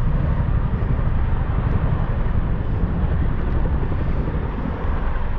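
Wind buffeting the microphone: a steady, loud, low rumble that flutters unevenly.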